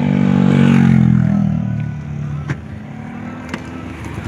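A motor vehicle engine swells and drops in pitch over the first two seconds, then fades to a low running hum. Two sharp knocks follow, about a second apart.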